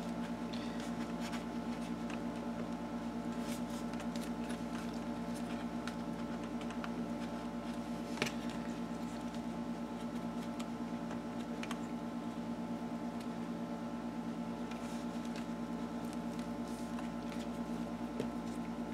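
Steady low electrical hum, with faint rustles and small clicks of hands handling paper and cord while tying a knot; one sharper click about eight seconds in.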